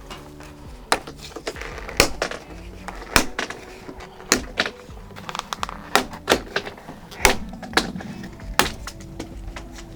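Background music with about a dozen sharp, irregular clicks and knocks as a trim strip is pried off a car's quarter panel.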